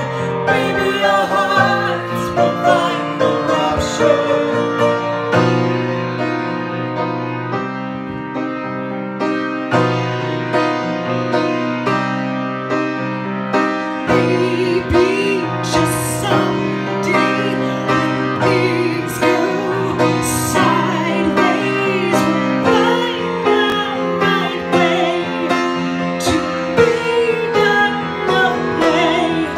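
A woman singing a show song with Yamaha grand piano accompaniment, the piano holding chords that change every second or two beneath her voice.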